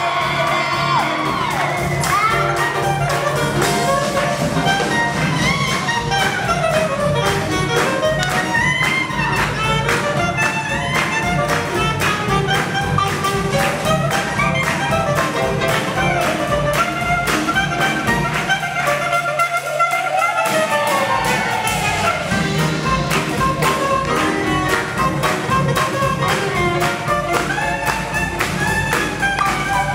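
Live swing jazz band playing, with horns carrying the melody over a steady driving beat. About two-thirds of the way through, the bass and drums drop out for roughly two seconds, leaving a held horn note, then the full band comes back in.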